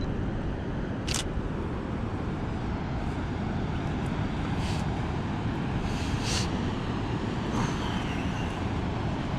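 Steady low rumbling noise of wind and ocean surf along a rocky shore, with a few short high chirps or clicks scattered through it.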